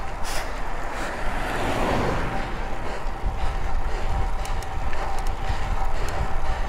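Road noise: a steady low rumble with a thin, steady whine, swelling briefly about two seconds in.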